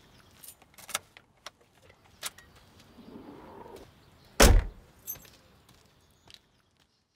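Rear tailgate of a Mitsubishi SUV slammed shut once, a heavy thud about four and a half seconds in. A few light clicks come before and after it.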